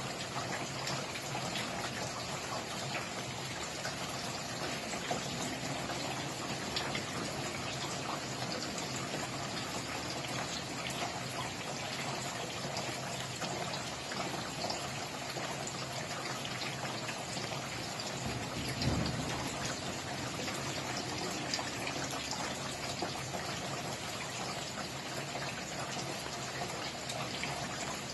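Steady rain falling, with many individual drops pattering on a surface. About two-thirds of the way through there is one brief low thud.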